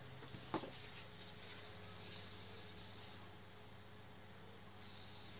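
Scratchy rubbing noise close to the microphone: a few clicks, then two spells of rubbing about a second long each, over a faint steady low hum.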